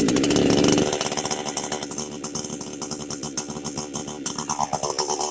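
JPNTECH 60cc two-stroke chainsaw engine running loud at speed, with a dense, rattling firing rhythm; the engine note changes about four seconds in.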